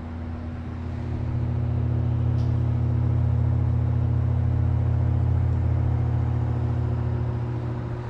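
Arno Ultra Silence Force 40 cm table fan running: a steady low motor hum with rushing air. It grows louder over the first two seconds, then holds steady.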